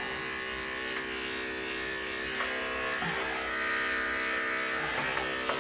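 Electric dog-grooming clipper with a number 10 blade running with a steady buzz as it shaves the hair in the crease of a miniature schnauzer's hind leg.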